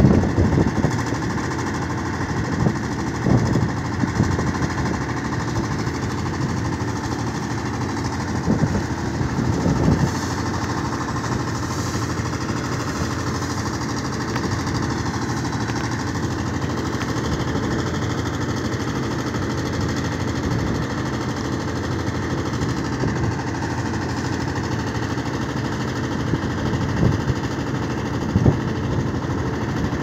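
A crane barge's diesel engine runs steadily alongside while its deck crane works, with a few short, louder knocks and clanks scattered through.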